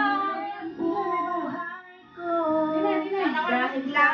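Karaoke singing: a high voice holding long notes over a music track, with a brief pause about two seconds in.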